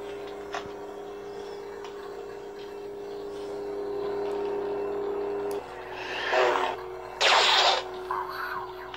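Several LED lightsabers humming together in a steady low drone. Part of the hum cuts off about five and a half seconds in, then two short, loud hissing power-down sounds come about six and seven seconds in as the blades are switched off.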